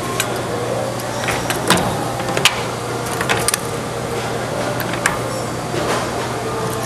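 A CNC machine running: a steady mechanical hum with scattered sharp clicks and taps.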